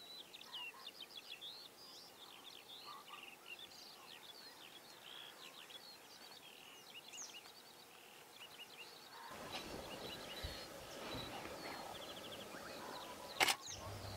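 Small birds chirping and twittering steadily over a faint outdoor background. About nine seconds in the background turns to a louder, even hiss, and a single sharp click comes near the end.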